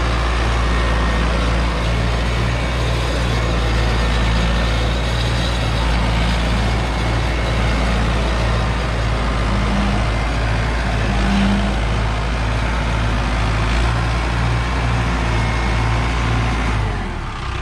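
Mahindra Arjun tractor's diesel engine running steadily with a low rhythmic throb as it pulls a heavily loaded PTO-driven trolley. It drops back to a quieter idle near the end.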